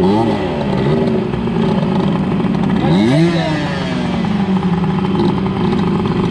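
Small underbone motorcycle engine run hard, its pitch climbing and falling with throttle and gear changes near the start and again about three seconds in, then holding a steadier note.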